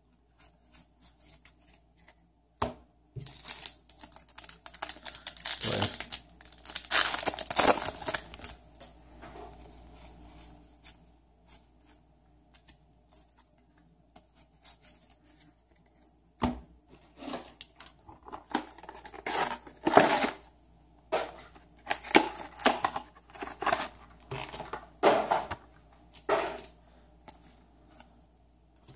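Trading-card booster pack wrappers being torn open and crinkled, in two bouts: one starting about three seconds in and one starting about halfway through, with a quieter stretch between them.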